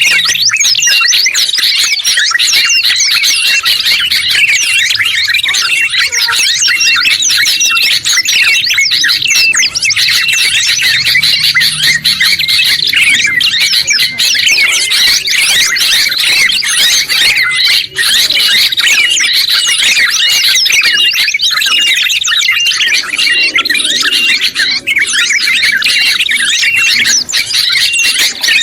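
Dense, unbroken chorus of overlapping songbird chirps and trills from a combined recording of bulbuls (trucuk and kutilang), red-headed prenjak (tailorbird) and pleci (white-eye), with a short note repeated over and over beneath the busier song.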